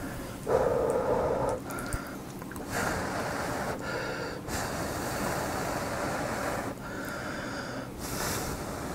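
Slurping Jjapaghetti black-bean instant noodles with green-onion kimchi, in a run of long slurps, the first and loudest starting about half a second in.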